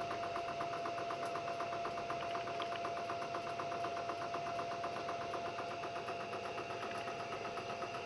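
LG direct-drive washing-machine motor running as a generator, powered through an inverter from a 12-volt battery: a steady high whine with a rapid, even ticking over it.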